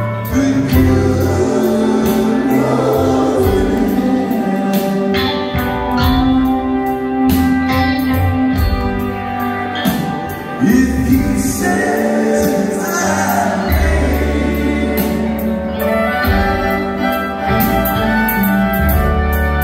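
A live band playing a song with singing, drums, bass and keyboard, recorded from among the audience in a theatre.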